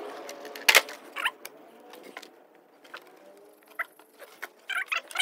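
Wooden pine boards knocking and scraping as they are lifted and stood upright, with one sharp wooden knock a little under a second in, then scattered lighter taps and clicks.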